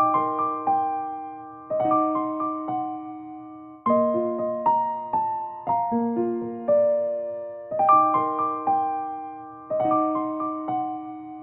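Background music: a gentle electric piano melody played in short phrases, each group of notes struck and left to fade.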